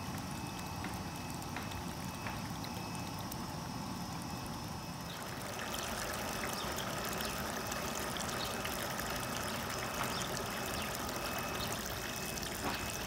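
Water pouring steadily from PVC outlet pipes and splashing into a fish-farm tank. About five seconds in it changes to thin streams falling from three wall pipes into the tank below. This is the flow through a freshly unclogged filter, back to normal.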